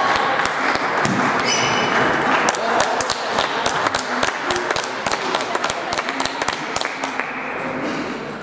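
Table tennis balls clicking sharply off bats and tables in quick, irregular succession, a rally at the main table mixed with play at nearby tables, over a steady hubbub of voices in the hall.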